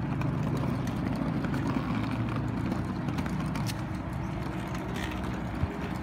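Small plastic wheels of a child's ride-on twist car rolling over rough pavement: a steady low rumble, with a few faint ticks.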